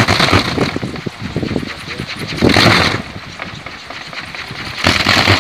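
Kolecer, a long wooden wind propeller on a tall pole, spinning in the wind with a loud rushing whir that swells three times, about every two and a half seconds, mixed with wind on the microphone.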